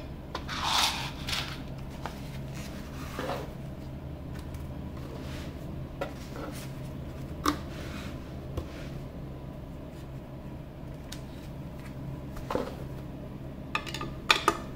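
Hands handling small metal screws, a screwdriver and kit parts on a tabletop: a brief rustle early, then scattered small clicks and taps, with a quick run of sharp metallic clicks near the end as a screw is set into the metal base plate. A steady low hum runs underneath.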